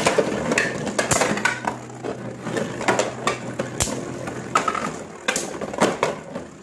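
Two Beyblade Burst spinning tops battling in a plastic stadium. Repeated sharp, irregular clacks sound as the tops strike each other and the stadium wall.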